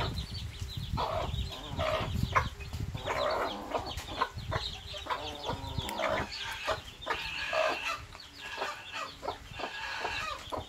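Mother hen clucking over her chicks while the chicks keep up rapid high peeping. Low thumping noise runs under the calls through the first half and stops about six seconds in.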